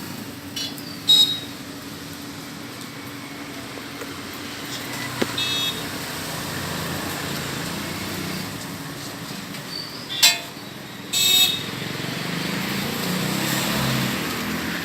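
Road traffic running steadily, with several short vehicle horn honks cutting through it.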